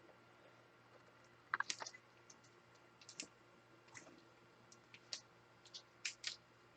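Trading cards and their plastic holders being handled, giving faint, irregular light clicks and ticks, with the loudest cluster about one and a half seconds in.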